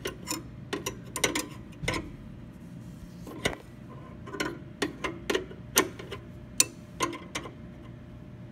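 Steel open-end wrenches clicking against brass compression nuts and each other as they are worked and repositioned while tightening a valve's fittings: a dozen or so sharp clicks at irregular intervals.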